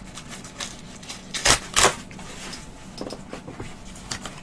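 Cardboard vinyl mailer box being handled and opened: scattered small clicks and rustles, with two loud, short scraping rustles close together about a second and a half in.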